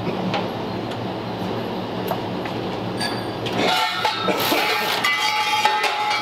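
The electric winding motor of a vintage car lift runs with a steady hum as new steel wire rope is wound around its spool. About four seconds in, the hum gives way to a rattling, clinking of the cable and steel lift parts.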